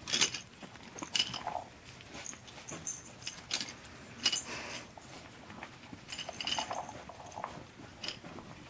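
Chihuahua puppies playing among plastic toys: scattered light clicks, taps and rattles, with a couple of brief high squeaks.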